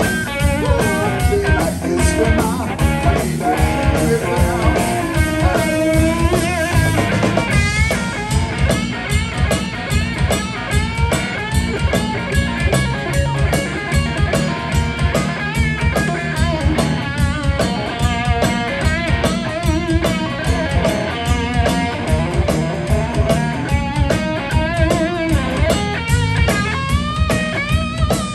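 Live blues-rock band playing an instrumental break: an electric guitar lead with many bent notes over bass guitar and a drum kit keeping a steady beat.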